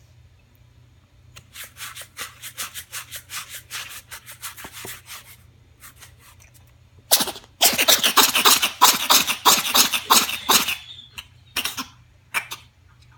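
A fast string of short sneezes, about five a second, in two runs with a pause between; the second run is louder. Two more single sneezes come near the end.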